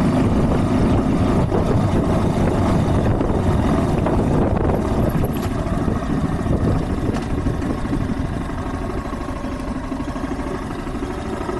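Honda CB190R motorcycle's single-cylinder engine running while being ridden, with a fast, even low pulsing that grows gradually quieter over the second half.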